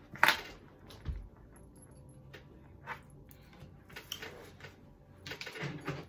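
Tarot cards being handled on a table: a sharp tap about a quarter second in, a low thump about a second in, scattered light clicks, and a short spell of card rustling near the end.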